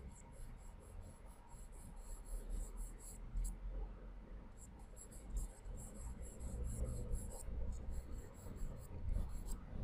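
Charcoal pencil hatching lightly on layout paper: faint, quick runs of short scratchy strokes, in two spells with a pause of about a second and a half around the middle.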